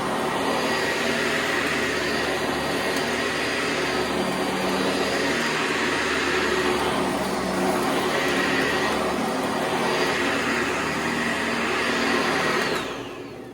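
Direct-air vacuum cleaner running steadily while picking up scoopable cat litter, then switched off and winding down, its pitch falling, near the end.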